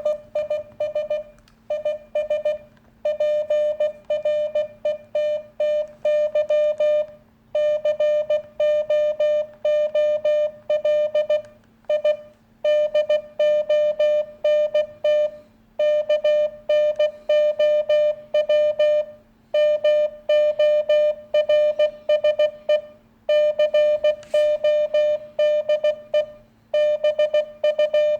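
Morse code (CW) beeps sent over CB radio: one steady tone keyed on and off in dots and dashes, in letter groups split by short pauses. A faint steady hum runs beneath.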